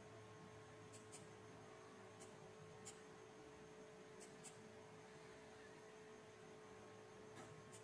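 Near silence: room tone with a faint steady hum and a few soft ticks scattered through.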